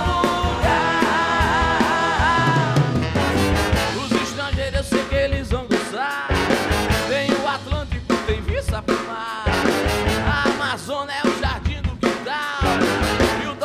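Live rock band playing: drums, electric guitars and a horn section with trumpet and trombone, with a male voice singing.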